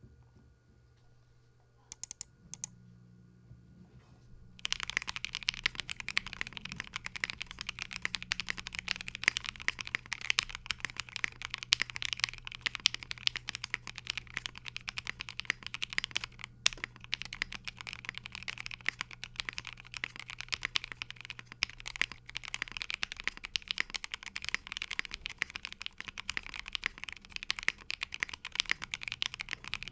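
Typing on a custom KBDFans Tofu60 mechanical keyboard, built plateless with lubed Banana Split linear switches and tape/tempest-modded. A couple of single keystrokes come about two seconds in, then fast continuous typing starts about four and a half seconds in.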